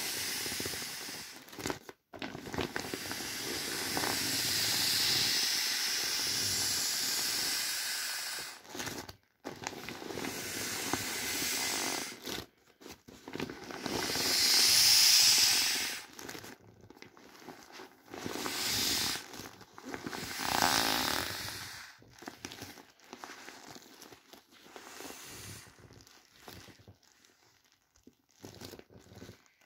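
Air hissing out of the valves of inflatable vinyl boats as hands press them flat, in several long surges with the loudest about halfway through, then weaker short puffs and vinyl crinkling as the boats empty.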